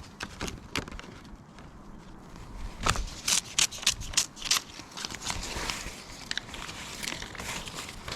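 A run of sharp clicks and crackles from hands working small parts, as a piece of soft sealant is pressed and wrapped over a bolt's thread; the clicks come thickest about three to five seconds in.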